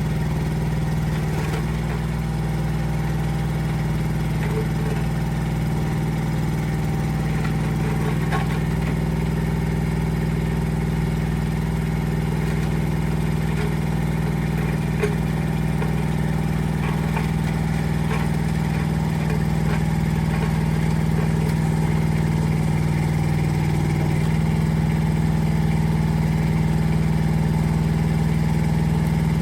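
Rippa R10 Eco mini excavator's engine running at a steady speed.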